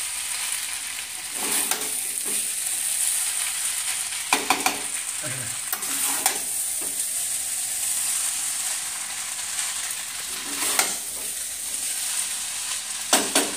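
Boiled noodles sizzling as they are stir-fried with masala in a metal pan, kept moving with tongs and a spatula so they don't stick to the bottom and burn. A steady high sizzle runs under sharp metal scrapes and clinks of the utensils on the pan every second or two.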